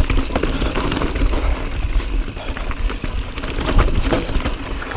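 Commencal Meta V4 mountain bike descending rocky, dusty singletrack: tyres crunching and clattering over rocks and dirt, with a steady rush of wind on the microphone underneath.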